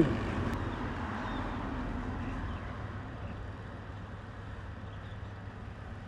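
Steady riding noise of a motorcycle on the move: engine and wind rumble with no distinct events, easing gradually in level.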